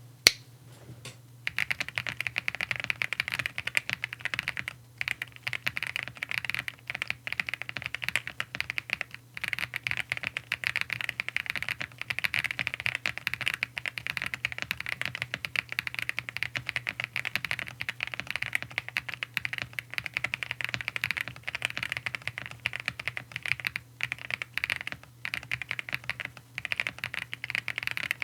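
Typing on a Zoom75 mechanical keyboard with stock CK x Haimu Pastel Thistle tactile switches, a polycarbonate plate and full foam: fast, continuous keystrokes with a few brief pauses, starting about a second and a half in. A steady low hum runs underneath.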